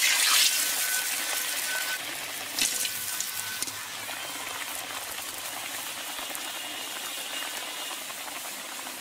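Breadcrumb-coated fish chop deep-frying in hot oil in a karahi: a loud sizzle as it goes in, settling after a couple of seconds into a steady bubbling sizzle.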